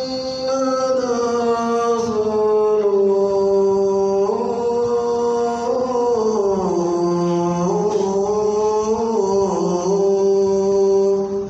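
A muezzin chanting the call to prayer (adhan) in one male voice, drawing out long held notes whose pitch winds slowly downward and then lifts a little. The phrase breaks off abruptly at the end.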